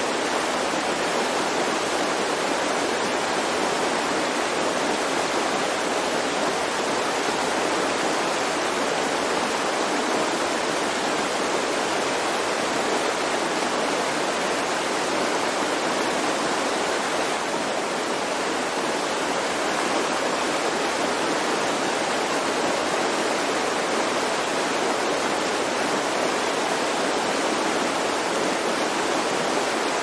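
A river rushing over rapids: a steady, even rush of water with no breaks or changes.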